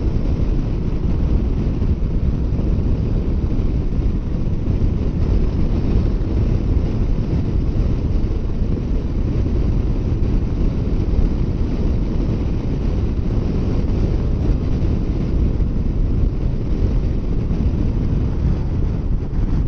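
Wind noise blasting over the microphone of a motorcycle at highway speed: a steady, loud low rumble that covers any engine sound.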